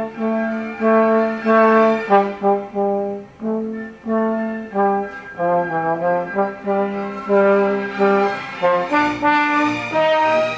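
Slide trombone played solo: a melodic line of separately tongued notes in the middle register, mixing short quick notes with longer held ones.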